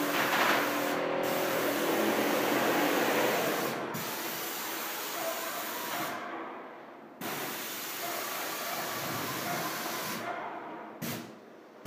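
Spray gun spraying sprayplast plaster onto a wall: a steady hiss that stops for about a second roughly six seconds in, then breaks off twice more near the end as the trigger is released.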